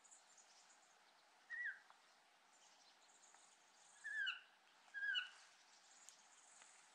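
A bird calling three times with short, falling notes: one about a second and a half in, then two close together about four seconds in, over a faint steady hiss.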